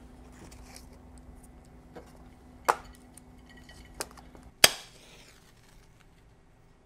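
Glass and small hard objects clinking on a bar counter: four sharp clinks, the two loudest a little before the middle and about two-thirds of the way in, the last with a brief hiss after it.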